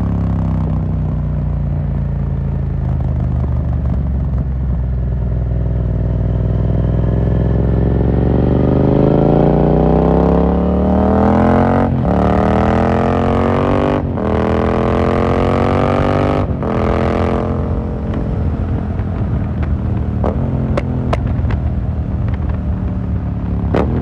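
2018 Yamaha MT-07's 689 cc parallel-twin through an Akrapovic carbon Racing Line full exhaust with the dB killer removed, heard from the rider's seat. It runs at a steady cruising note, then revs up hard through three quick upshifts, each a brief break in the rising pitch, and settles back to a steady cruise. A few sharp clicks come near the end.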